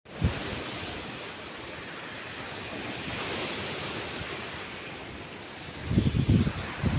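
Sea surf washing onto the beach in a steady rush. About six seconds in, wind starts buffeting the microphone in low, uneven gusts.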